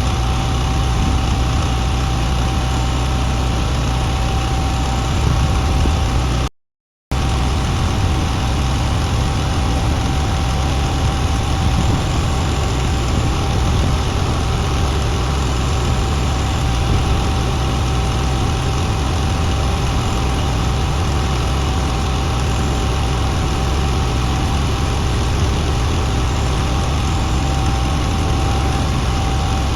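Engine idling steadily, with a deep rumble and a steady whine over it. It cuts out for about half a second about six seconds in, then carries on unchanged.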